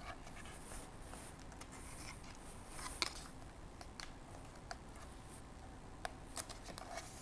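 Paper flaps of a lift-the-flap book being lifted and pressed down by hand: faint paper rustling with light taps and clicks, the sharpest about three seconds in.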